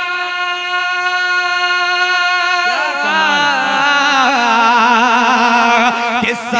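A man singing a sehra into a microphone, holding one long steady note and then, about three seconds in, sliding lower into a wavering, ornamented run without words.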